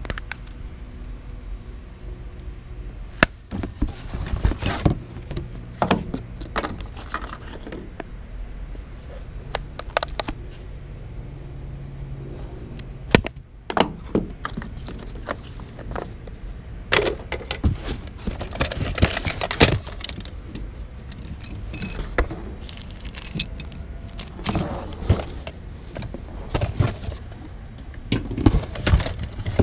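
Hands rummaging through a cardboard box of small odds and ends, with irregular clinks, knocks and rattles of glass, plastic and wicker items and the cardboard being shifted, over a steady low rumble.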